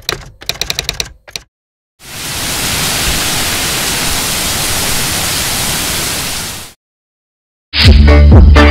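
Television-static sound effect: a steady hiss lasting about five seconds that cuts off abruptly. Before it comes a burst of rapid clicks, and after a second of silence, loud music with a heavy bass starts near the end.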